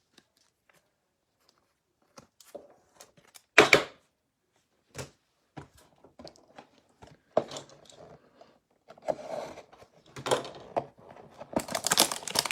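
Trading cards and card packaging being handled on a table: scattered light taps, two sharper knocks a few seconds in, then crinkling of wrapper packaging near the end as the next box is opened.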